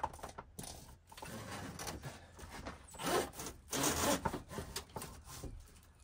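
Electrical wire being pulled and fed through a makeshift wire loom along a bare van ceiling, making irregular rustling and scraping, loudest about three to four seconds in.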